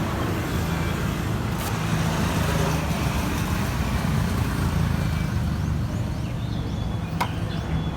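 Steady low engine rumble, with a sharp click about a second and a half in and another near the end.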